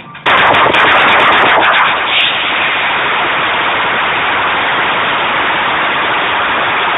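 Replica 3/4-scale Civil War Gatling gun firing one long continuous burst, very loud and overloading the phone's microphone into a solid roar, starting about a third of a second in.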